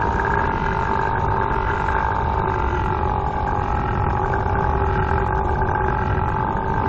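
A cartoon character's single long belch, held at a steady low pitch without a break.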